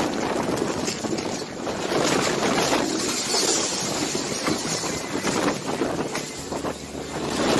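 Strong storm wind gusting, rising and falling in strength. Scattered knocks and clatter come from plastic chairs and debris being blown about.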